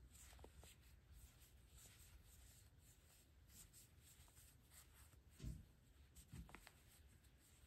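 Near silence with faint scratching and rustling of yarn as a metal crochet hook works berry stitches, and two soft bumps about a second apart late on.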